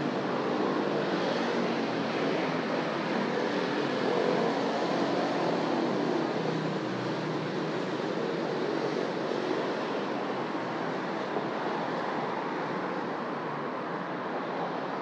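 Steady road traffic noise of vehicles passing on a city street, easing off a little toward the end.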